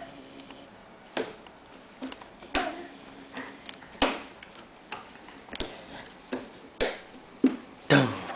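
A crawling baby's palms slapping on a hardwood floor: about ten short, sharp slaps at an uneven pace, roughly one a second.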